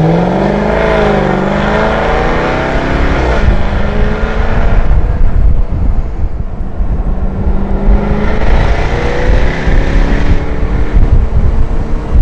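Jaguar F-Type Project 7's supercharged V8 accelerating: the revs climb, drop back at a gear change about three seconds in, hold steadier, then climb again near the end. Wind and road noise of the open-top car run underneath.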